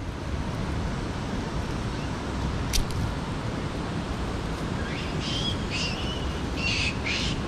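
Young Japanese macaques giving about four short, high-pitched squeals in quick succession over the last few seconds, against a steady background hiss.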